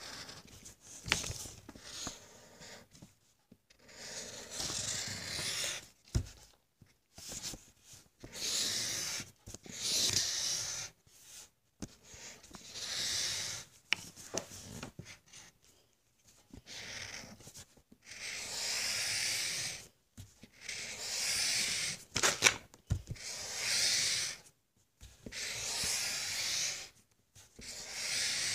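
Drawing strokes scribbling on a sheet of paper close to the microphone. The rough rubbing comes in repeated strokes about a second long, with short pauses between them.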